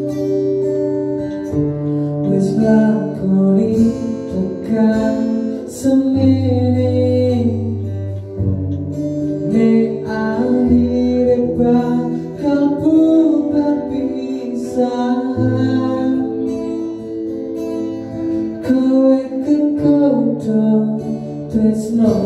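A man singing a slow pop ballad to his own acoustic guitar, over long, steady low notes.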